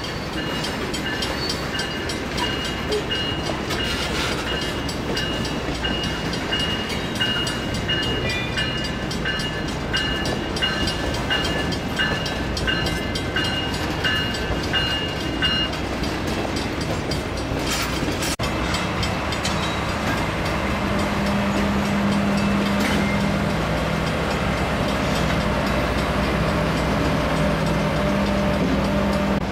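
Pacific Harbor Line low-emission switcher locomotive moving through the yard, its bell ringing in an even repeating rhythm for roughly the first half. After a break, the diesel's steady drone is heard up close and a little louder, with a low hum.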